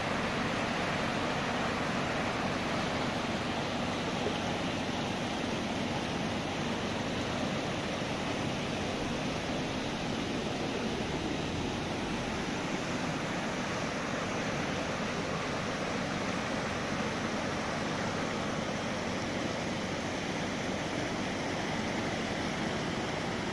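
Floodwater rushing in a fast, steady flow across paved ground, a continuous even wash of water noise with no breaks.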